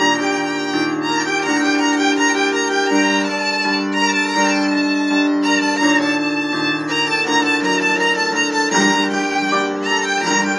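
Solo violin played with the bow: a slow melody of long sustained notes, some with a wavering vibrato.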